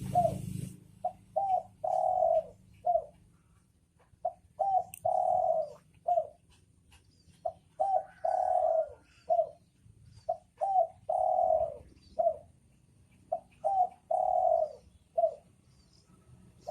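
Spotted dove (dekukur) cooing: a phrase of two short coos, one long drawn-out coo and a last short coo, repeated five times about every three seconds.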